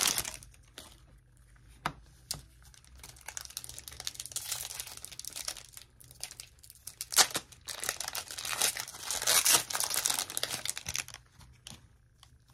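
Foil wrapper of a Pokémon card booster pack crinkling and rustling as it is opened and the cards are pulled out and handled, in several crackly bursts with small sharp ticks; it goes quiet near the end.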